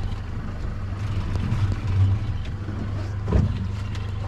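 Boat's engine idling with a steady low hum, and a knock about three seconds in.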